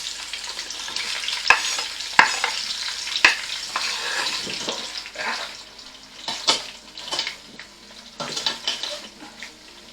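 Sliced onions frying in a pot of hot vegetable oil, a steady sizzle, stirred with a utensil that knocks sharply against the pot several times.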